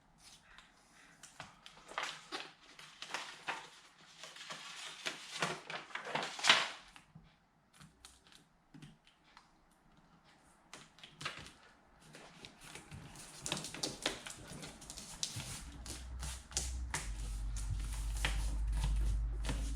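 Sound-deadening mat being pressed and worked onto a car door panel by hand: irregular taps, clicks and crinkling, with one sharp knock about six and a half seconds in and a low rumble through the last few seconds.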